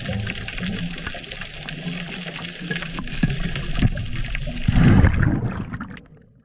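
Underwater camera sound: steady muffled water noise with scattered sharp clicks as a speared hogfish is handled on the spear shaft. A louder low rush comes about five seconds in, then the sound fades out near the end.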